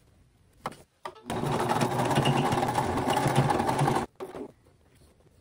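Basic household sewing machine running for about three seconds, stitching through the glove's fingertip fabric, then stopping suddenly. A light click comes shortly before it starts.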